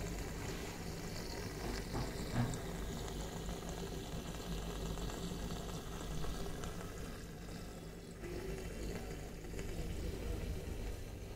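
Aquarium aeration bubbling: a steady fizzing and gurgling of air bubbles streaming up through the tank water, over a constant low electrical hum from the pump. A brief knock about two seconds in.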